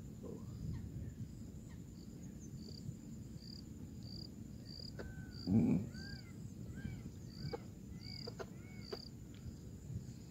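Rural outdoor ambience: a short high chirp repeating about every two-thirds of a second, with short arched chirps joining in the second half. A single dull thump about halfway through is the loudest sound.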